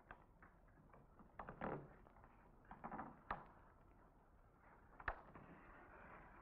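Faint scuffs and knocks of bare feet stepping and sliding on a stage floor, with a couple of short scrapes about a second and a half and three seconds in and a few sharp clicks, over a steady low hiss.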